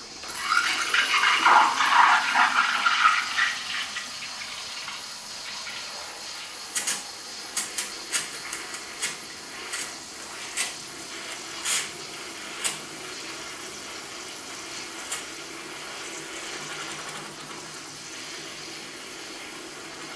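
DeLonghi EC155 steam wand heating milk: the steam comes on with a hiss about half a second in, gurgling loudly through the milk for the first few seconds, then settling into a steady hiss with sharp pops scattered through the middle.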